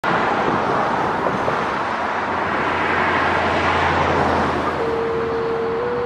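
Road traffic going by. About five seconds in, a single steady tone from a scanner radio starts, then steps slightly higher about a second later: the two-tone fire page that activates the siren.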